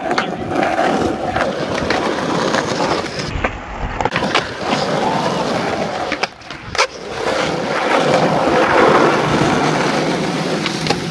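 Skateboard wheels rolling over concrete skatepark ramps and flat ground, a steady rumble. About six and a half seconds in there are a couple of sharp clacks.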